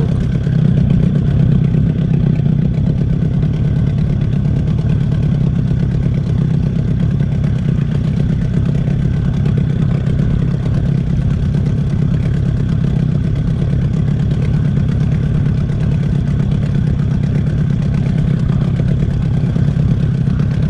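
Boat's outboard motor running steadily at low trolling speed, a constant low drone with no change in pitch.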